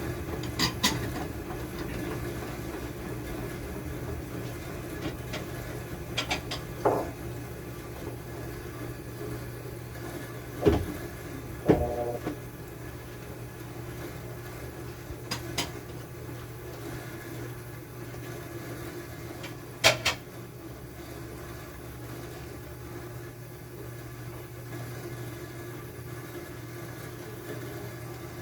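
Washing machine running with a steady motor hum, with a handful of short knocks and clinks scattered through it, the loudest about eleven and twenty seconds in.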